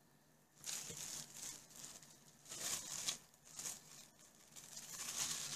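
Plastic wrap crinkling and rustling in several short, quiet swishes as it is handled and wrapped around a ball of pie-crust dough.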